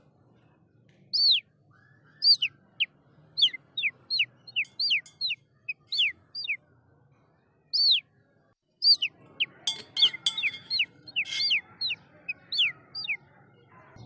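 A small bird chirping over and over in short, quick notes, each sliding down in pitch, in two runs with a brief pause between them. A few short clicks come about two-thirds of the way through.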